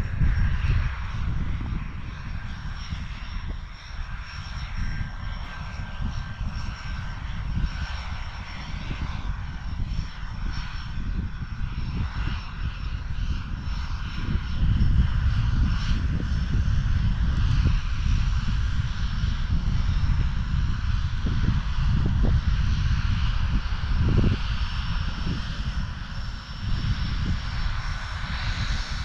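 Wind buffeting an action camera's microphone: an irregular low rumble that swells and fades, louder in the second half.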